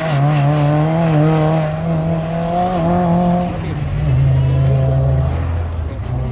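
Mitsubishi Lancer Evolution's turbocharged four-cylinder engine revving high as the car accelerates hard away. The note drops with a gear change about four seconds in.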